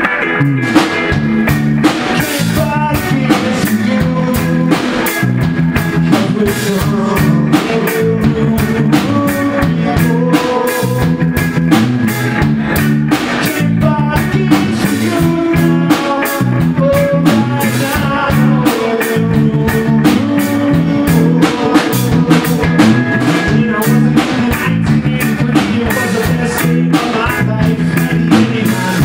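Live rock band playing: electric guitars over a steady drum-kit beat, with a man singing.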